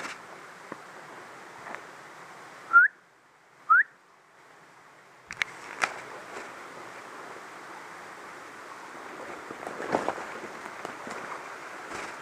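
A person whistling twice, two short rising whistles about a second apart, the loudest sounds here. Around them, footsteps and twigs crackle in dry undergrowth over a steady rushing background.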